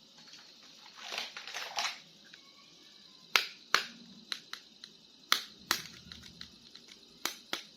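Plastic toy packaging crinkling for about a second, then a run of sharp plastic clicks and taps, loosely in pairs, as toy figures and their packaging are handled.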